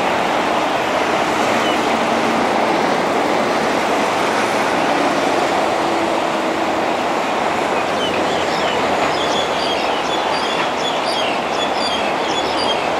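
Steady rail noise of an East Rail line electric train running on the track, an even rumble and hiss with no breaks. Faint high chirps join in over the second half.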